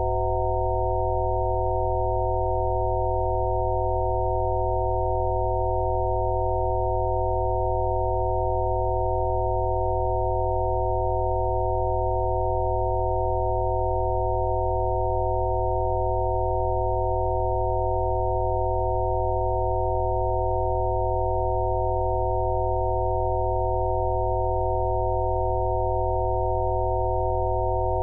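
Electronically generated Rife-frequency tones: several steady pure tones sounding together over a low hum, holding unchanged throughout.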